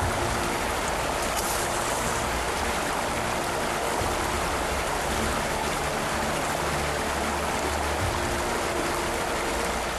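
Rushing river water: a fast, rough current making a steady, even rush.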